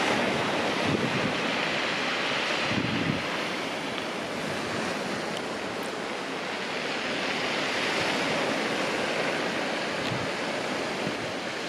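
Sea surf breaking and washing over a pebble beach, a steady rushing of waves, with wind gusting on the microphone in the first few seconds.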